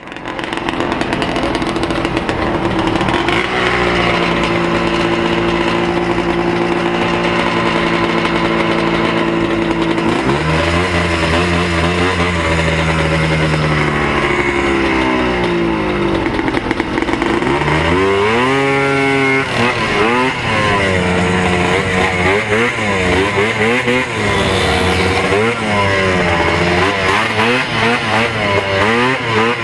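Two-stroke single-cylinder engine of a vintage Ski-Doo Olympique 277 free-air snowmobile, with other race sleds running alongside: engines running steadily at the start line, then revving. About 18 seconds in the sled launches, its engine pitch sweeping up and then rising and falling continually as it races over the hillcross course.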